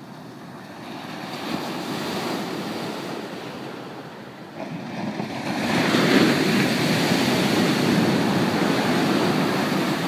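Ocean surf on a sandy beach. A smaller wave washes in about a second in. A larger wave breaks about five and a half seconds in, the loudest moment, and its foaming rush keeps going after it.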